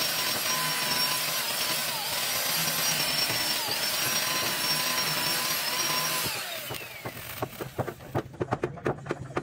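Electric hand power tool running with a steady high whine as it cuts wood, its pitch dipping briefly several times under load. About six seconds in it is switched off and winds down, followed by a quick run of sharp taps and knocks.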